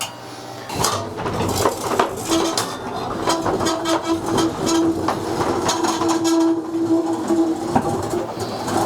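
Technical Innovations Home Dome observatory dome rotating on its support wheels: a steady rolling rumble with many rattling clicks, and a steady hum that joins about two seconds in.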